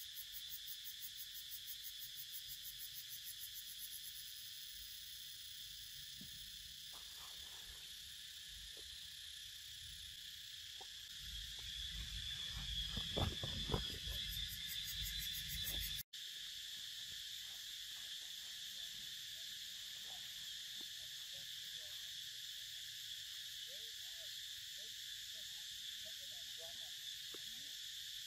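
A steady, high-pitched insect chorus. About halfway through, rustling and crackling in dry leaf litter grows louder, with a few sharp crackles, and breaks off abruptly.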